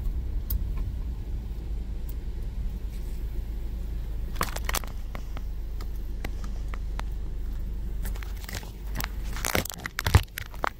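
Car heard from inside the cabin: a steady low rumble of the moving car, with a couple of sharp clicks about four and a half seconds in. Near the end the rumble drops away and a cluster of clicks and crinkling rustles follows.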